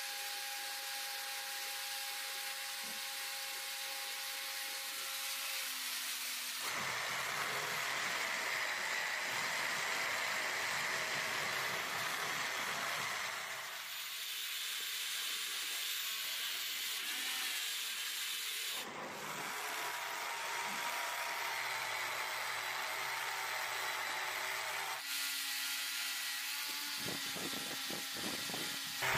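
A gas torch hisses as it heats a steel cross peen hammer head. A brass wire wheel on a power tool then spins against the hot head, brushing brass onto the steel to coat it. The sound switches abruptly several times, with steady stretches of hissing and brushing in turn.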